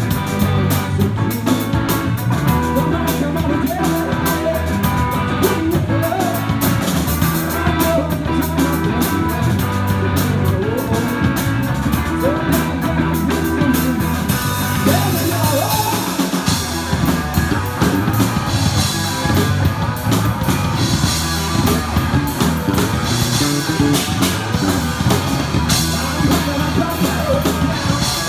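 Live rock band playing: distorted electric guitars over a drum kit with steady drum and cymbal hits, and a voice singing.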